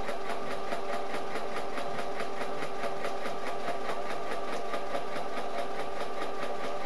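Electric domestic sewing machine running at a steady, fairly fast speed, sewing a straight seam: a motor hum with an even, rapid rhythm of needle strokes.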